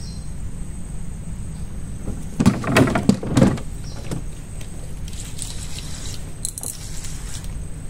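A fishing rod being handled in a wooden boat: a cluster of knocks and clatter about two and a half to three and a half seconds in, then a rasping whir from the reel, over a steady low rumble.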